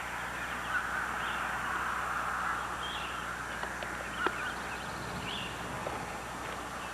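Faint birds chirping now and then over a steady outdoor hiss, with a few light clicks.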